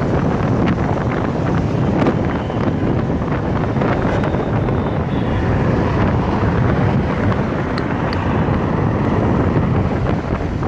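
Wind buffeting the microphone of a phone held on a moving motorcycle at road speed, a loud, steady rushing with vehicle and road noise under it.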